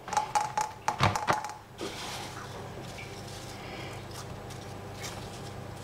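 Hands pressing and patting pizza dough out on a metal pizza pan: a quick run of light taps and clicks over the first second and a half, then only a steady low background hum.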